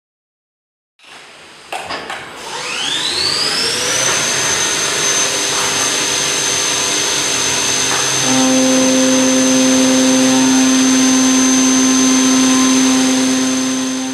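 The spindle of a Leadwell V30i CNC vertical machining centre spins up after a few clicks. Its rising whine levels off high and steady over the hiss of flood coolant. About eight seconds in a lower steady hum joins as the end mill cuts a slot in brass bar stock.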